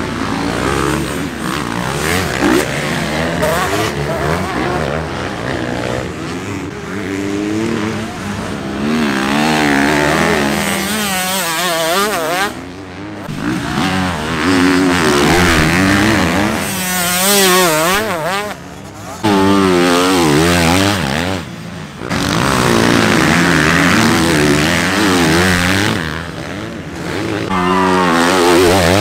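Motocross dirt bikes racing, several at once, their engines revving up and down in quick waves as the riders work the throttle through the corners. The sound breaks off briefly a few times.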